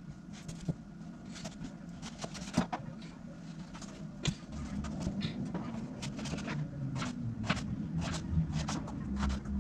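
Kitchen knife cutting raw squash on a chopping board: irregular knocks of the blade hitting the board as the hard squash is chopped, over a low hum that grows louder about halfway through.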